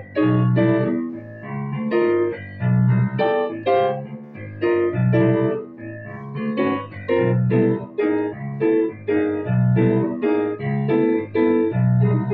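Piano sound from a keyboard: quartal sus chords played as triplets in the right hand over a repeating I–vi–ii–V turnaround in the left hand. Low bass chords return about every second and a half.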